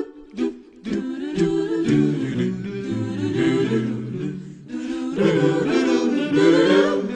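Wordless a cappella vocal harmony: several voices singing a melodic break between verses of a song, with a few short percussive clicks at the start.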